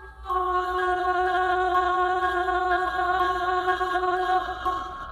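A single sustained note of background music, held steady for about four seconds and then fading away near the end, over a faint low hum.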